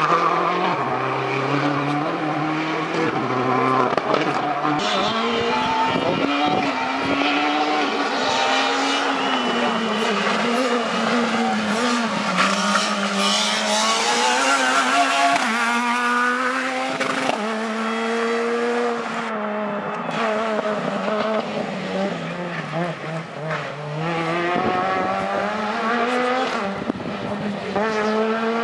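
Rally car engine at full throttle on a special stage, its pitch climbing and dropping sharply with each gear change and lift. It is heard throughout, louder as the car comes close in the middle and fainter later on.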